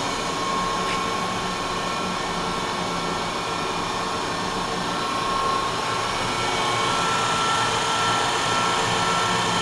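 Grisetti cylindrical grinder running under power, its motors giving a steady whirring hum with a few held tones. It grows slightly louder a little past the middle.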